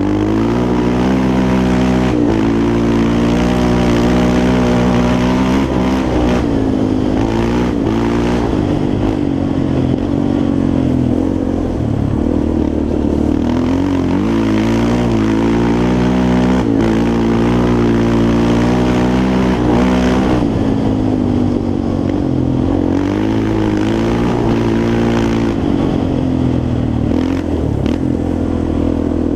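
Yamaha Raptor 350 quad's single-cylinder four-stroke engine running under load while riding, its pitch rising and falling repeatedly with the throttle.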